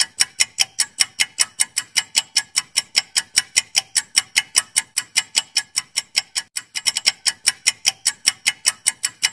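Clock-ticking sound effect marking a quiz countdown timer: sharp, even ticks about five a second, with a brief stumble in the rhythm about seven seconds in.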